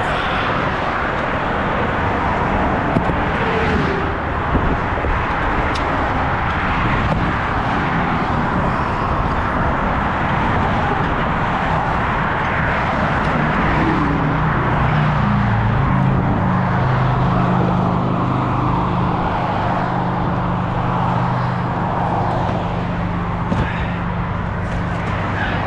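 Steady highway traffic noise as vehicles pass close by on the road. About halfway through, a low, steady engine-like hum comes in and holds, with a few faint clicks.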